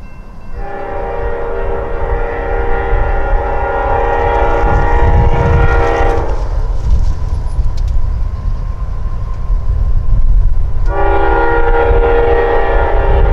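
Freight diesel locomotive's multi-note air horn blowing a long blast of about six seconds, then a second long blast beginning about eleven seconds in, a typical crossing signal. Underneath is the locomotive's low engine rumble, growing louder as it approaches.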